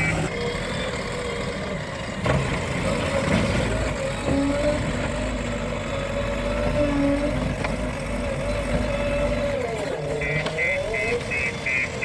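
Heavy machinery's diesel engine running steadily under a whine that wavers in pitch. About ten seconds in, a string of high beeps starts, about two a second.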